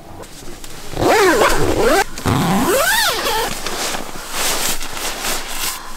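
Two wordless sing-song vocal sounds from a woman, each gliding up and then down in pitch, followed by rustling and scraping of a nylon sleeping bag and bedding as she shifts on it.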